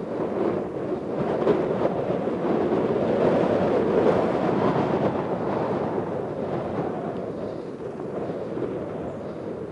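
Jet engines of a taxiing KLM Boeing 737 running at taxi power: a steady rumbling noise that swells about three to four seconds in and eases off toward the end.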